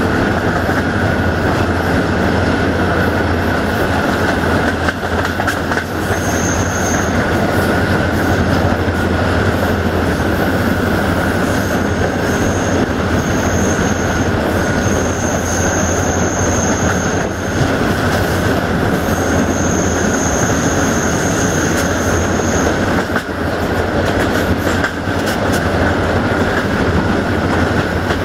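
Passenger train running at speed, heard from an open coach window: steady rumble of steel wheels on the rails, with a high-pitched wheel squeal that comes and goes several times, from about six seconds in until a few seconds past the middle.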